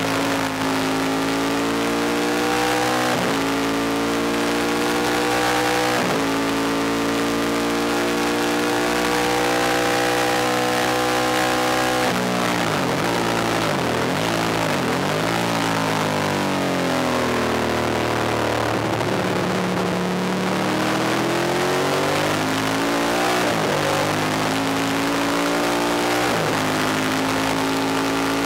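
Ducati 1000DS air-cooled V-twin race bike heard onboard at full throttle, its pitch climbing through the gears with upshifts about three, six and twelve seconds in. It then drops in steps through several blipped downshifts under braking for a corner, and pulls back up through two more upshifts near the end.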